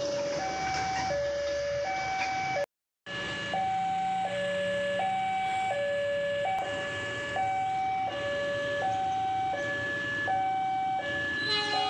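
Two-tone electronic warning alarm alternating between a high and a low note about every three-quarters of a second, broken by a brief dropout about three seconds in. Other tones join near the end.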